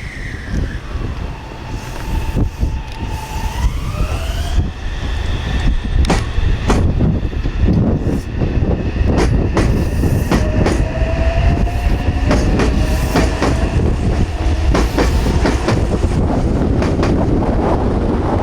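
Electric train pulling away: its inverter motors whine in stacked tones that climb in pitch from about four seconds in, over a heavy low rumble and repeated sharp clacks of the wheels on the track. Strong wind buffets the microphone.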